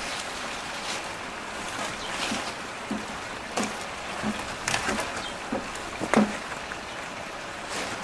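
Steady rain hiss with scattered short rustles and knocks.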